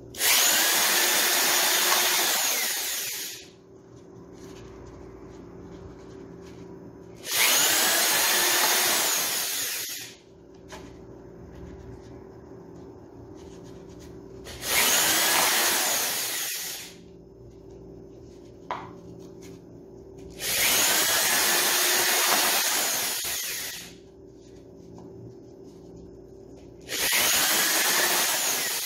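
Corded electric drill boring holes through the thin side wall of a plastic flowerpot: five separate runs of two to three seconds each, with pauses of a few seconds between them.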